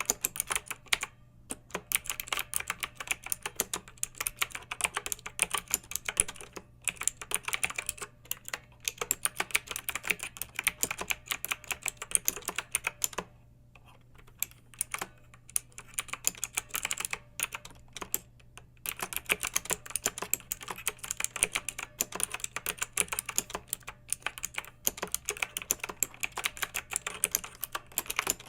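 Fast typing on a clicky mechanical keyboard: a quick, dense run of keystrokes with short breaks, and a longer pause of about a second halfway through.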